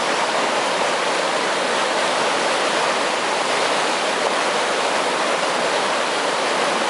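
Water rushing steadily along an irrigation canal, an even, unbroken rushing.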